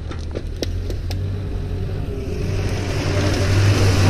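UAZ-452 van's engine running as the van drives toward the microphone, a low steady drone that grows louder through the second half. A few sharp clicks in the first second.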